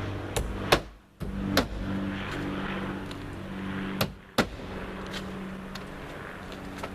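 Roofing nails being driven through tarpaper felt: a few sharp, irregularly spaced strikes, over a steady low mechanical hum.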